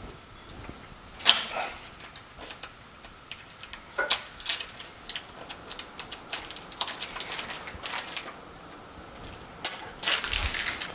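Scattered light clicks and taps of kitchen prep with small ceramic dishes and utensils, seasoning beaten eggs and putting butter into a frying pan. A sharp click about a second in, a run of light ticks in the middle, and a sharper ringing clink near the end.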